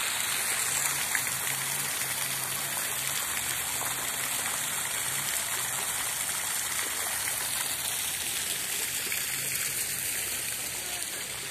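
Fountain water pouring from an upper bowl and splashing into the pool below: a steady rushing splash that eases a little near the end.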